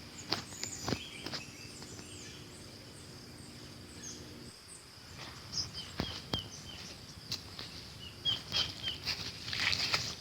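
Outdoor ambience of birds chirping in short repeated groups of three or four over a steady insect buzz, with scattered sharp clicks. A low hum fades out about halfway through.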